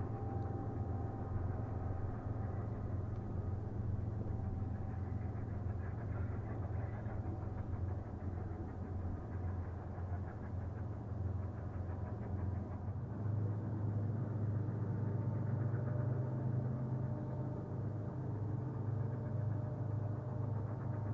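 Steady low drone of an idling engine, heard from afar, with its hum stepping up slightly about thirteen seconds in.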